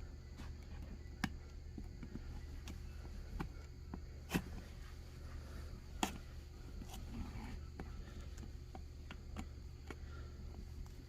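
Irregular small clicks and taps from a flathead screwdriver pressing a rubber spline deeper into the groove of a window screen frame, over a steady low hum.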